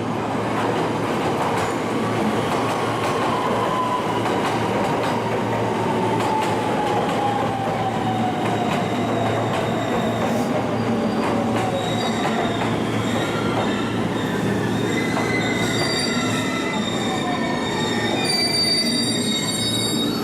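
Electric train slowing on the rails: a whine falls steadily in pitch over the first half, then high wheel and brake squeals set in over the last several seconds as it comes to a stop.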